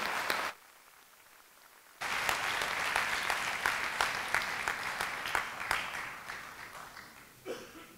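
Audience applauding a speaker's welcome. The clapping breaks off suddenly about half a second in, comes back abruptly after about a second and a half, then slowly dies away toward the end.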